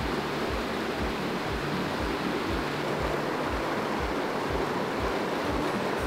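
Waterfall and cascade water rushing over boulders, a loud, steady rush, with background music's low beat pulsing about twice a second underneath.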